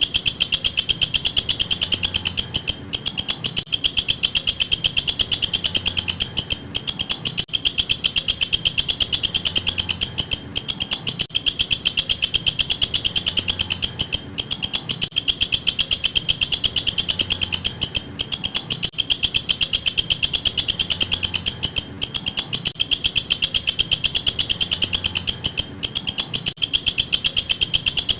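Walang kecek, a singing insect, calling in a fast, continuous run of sharp high-pitched ticks, broken by short pauses every second or two.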